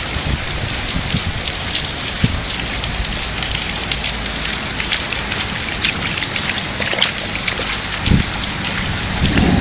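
Hailstorm: a steady downpour with hailstones striking hard surfaces as many sharp clicks and cracks through the hiss of the rain. A few low thumps come near the end.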